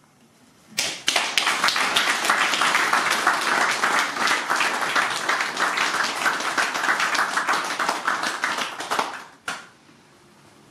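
Audience applauding: dense clapping that starts about a second in and stops abruptly after about eight and a half seconds.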